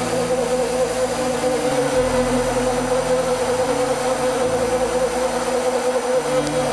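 Steady mechanical hum of a pipe-drilling machine at work, mixed with background music whose low bass notes change every second or so.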